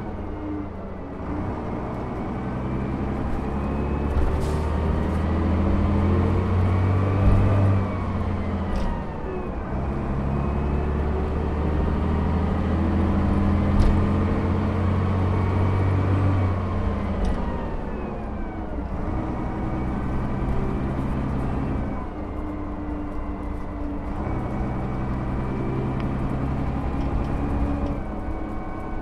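Leyland 0.510 8.2-litre fixed-head turbodiesel of a Leyland National Mk1 single-deck bus, heard from inside the bus while it is driven. The engine note climbs and drops back twice, and a few sharp knocks come through.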